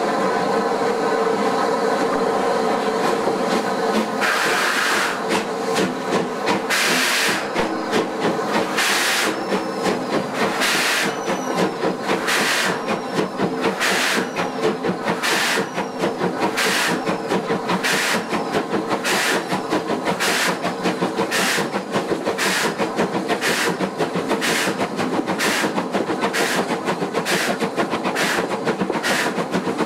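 Three-cylinder Bulleid Light Pacific steam locomotive 34046 Braunton getting away from a station, heard from a carriage behind it: after a steady tone in the first few seconds, its exhaust beats come about two seconds apart at first and quicken steadily to well over one a second as the train gathers speed.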